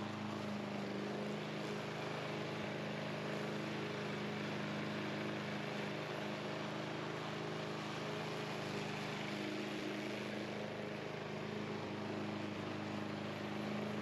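The gas engine of a Craftsman push mower running at a steady speed, heard from some distance as an even hum with a constant pitch.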